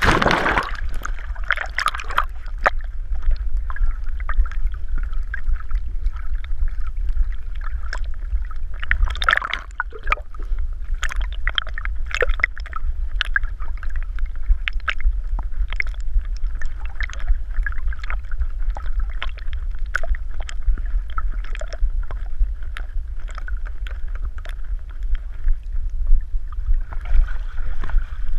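Lake water splashing and sloshing around a dog swimming, heard from a camera strapped to its back, with a burst of splashing right at the start and another about ten seconds in. Under it runs a steady low rumble, with many small clicks and drips.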